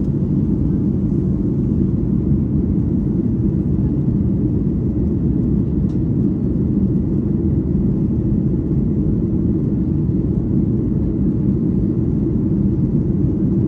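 Steady low rumble of cabin noise in a Boeing 737-800 climbing after takeoff, its CFM56-7B jet engines at climb power.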